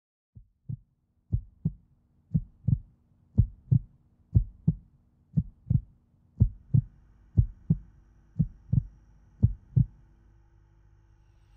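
Heartbeat sound effect: about ten lub-dub double thumps, roughly one a second, over a faint steady hum, the beats stopping shortly before the end.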